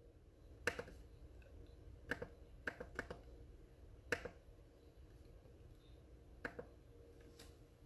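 Faint, separate key clicks on a laptop keyboard: about seven single presses spaced irregularly, not continuous typing.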